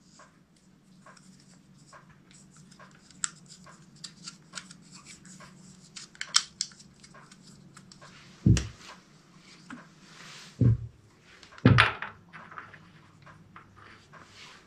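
Hands working small metal fittings at a generator's propane regulator: light clicks and scratchy rustling, then three heavier knocks in the second half.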